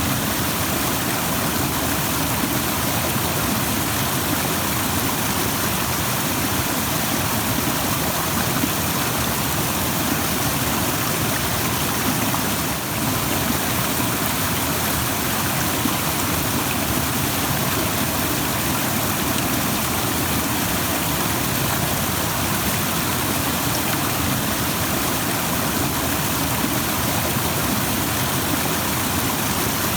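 Rushing stream: water pouring over rocks in a steady, full hiss.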